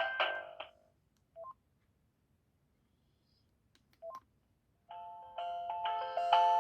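Panasonic GD67 mobile phone ringtones. One polyphonic melody ends just under a second in, then two short two-note key beeps sound about two and a half seconds apart. A new ringtone starts about 5 s in and grows louder.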